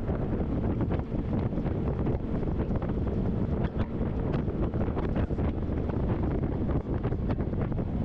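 Wind buffeting the microphone of a speedboat under way, with the rush of water along the hull and the drone of its Mercruiser 4.3 V6 sterndrive engine beneath; a dense, unbroken rumble full of quick flutters.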